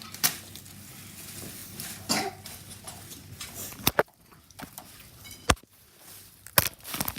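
Handling noise on the camera: about five sharp knocks and bumps spread over several seconds, with light rustling between them.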